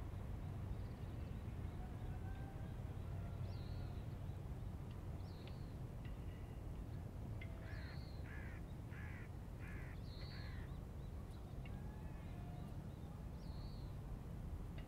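A crow cawing about five times in quick succession, about halfway through, over a steady low rumble. Short high chirps from small birds are scattered throughout.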